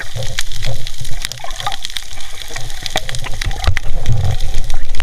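Underwater water noise as the diver moves: a steady rushing, bubbling sound with many scattered sharp clicks and knocks.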